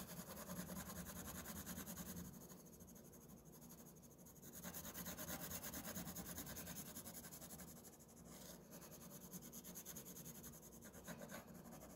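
Faint scratching of a coloured pencil shading back and forth on paper, louder for the first two seconds and again from about four and a half to eight seconds in.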